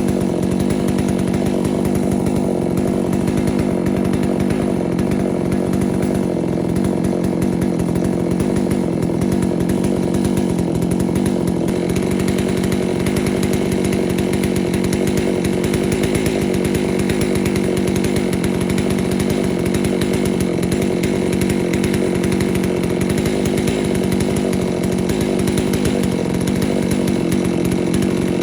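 Chainsaw in a chainsaw mill running steadily under load, ripping a sweet gum crotch lengthwise into slabs; the engine note holds an even pitch throughout.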